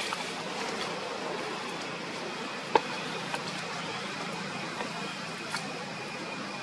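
Steady outdoor background hiss with faint high steady tones, broken by one sharp click a little before the middle and a few fainter ticks.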